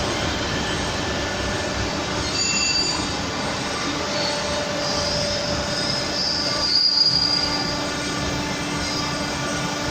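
Crankshaft grinder's abrasive wheel grinding a six-cylinder engine crankshaft: a steady grinding hiss with high squealing tones, loudest about five to seven seconds in.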